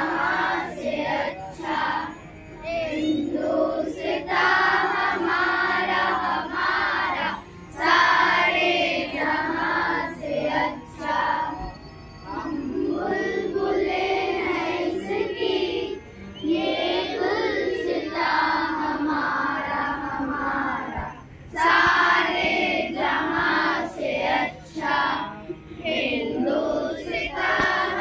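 A group of children singing a song together as a choir, in phrases of a few seconds each with short breaks between them.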